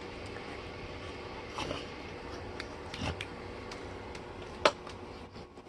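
Steady room hum with a few soft rustles and clicks, the sharpest a little before the end, as a dog shifts and settles on a bed.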